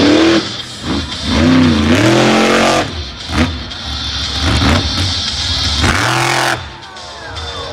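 Monster truck engine revving hard in repeated surges, its pitch climbing and dropping several times. The truck is under load as it wheelies up onto its back wheels in the dirt. The engine eases off and falls in pitch near the end.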